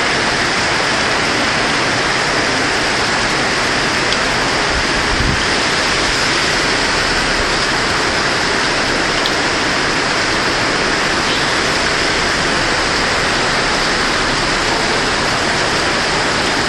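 Heavy tropical-storm rain pouring down, a steady, dense hiss that does not let up.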